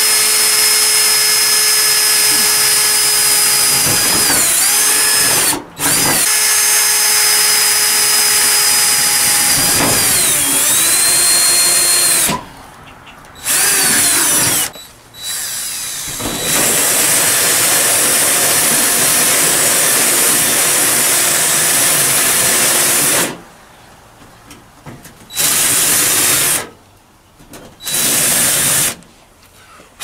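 DeWalt cordless drill boring through a garage door panel, running hard in several long stretches with a steady motor whine that sags in pitch under load, then in shorter bursts with pauses near the end.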